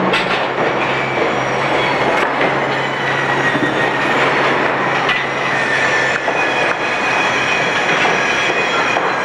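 A train passing: a loud, steady, dense noise, with a thin high squeal that slides slightly lower in pitch in the middle.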